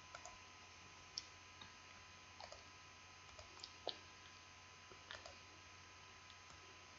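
Faint computer mouse clicks, scattered single clicks about every second, over a low steady electrical hum: near silence otherwise.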